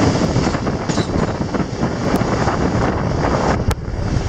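Train running over a bridge, heard from an open door: a steady rumble of wheels on rails with wind buffeting the microphone, and a sharp click near the end.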